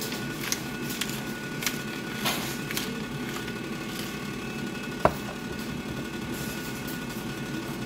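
Kitchen clatter: a few light knocks and clicks, then one sharper click about five seconds in, over a steady mechanical hum.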